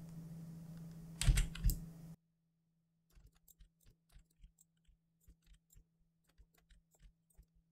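Two computer keyboard keystrokes about a second and a half in, over a faint steady electrical hum. After about two seconds the sound cuts to near silence, with only a few very faint clicks.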